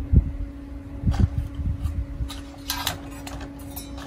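Scattered handling noises: low thumps and rustles, with a few short clicks a little before the three-second mark, over a steady low hum.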